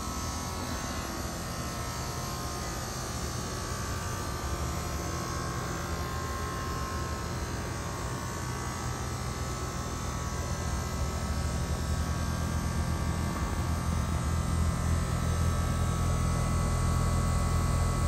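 Bryant Legacy Line 116B single-stage air conditioner's outdoor condenser unit running: a steady low hum with the rush of air through the unit, getting louder over the last few seconds.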